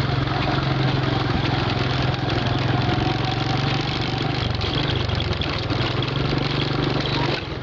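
Engine of a moving vehicle running steadily, heard from on board, with a steady hiss of road noise; the sound dips briefly near the end.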